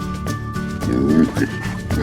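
Cheerful background music with a steady rhythm, and a short animal call cutting in about a second in.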